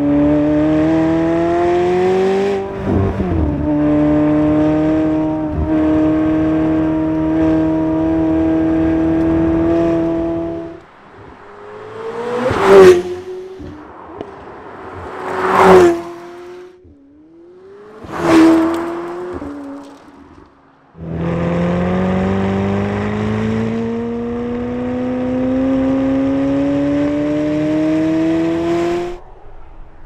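McLaren 750S's 4.0-litre twin-turbocharged V8 under acceleration on track. It upshifts about three seconds in and then holds a steady note. Next come three quick fly-bys, each falling in pitch as the car passes. Near the end the engine pulls steadily up through the revs before cutting off.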